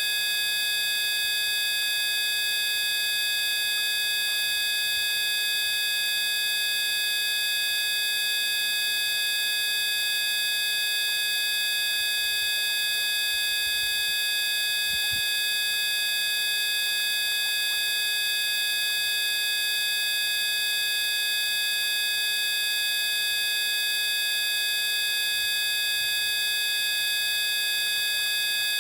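Steady electronic drone made of several tones held together at once, buzzy and unchanging, played as a healing-frequency sound.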